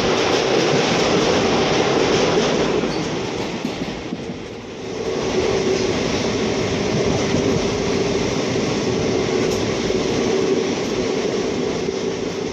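Passenger train running along the track, heard from on board: a steady rush and rumble of wheels on rails, easing briefly about four seconds in and then picking up again.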